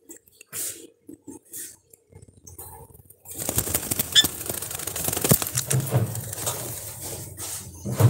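Rose-ringed parakeets making short soft calls and a brief chirp. About three seconds in, a denser rustling noise full of clicks starts.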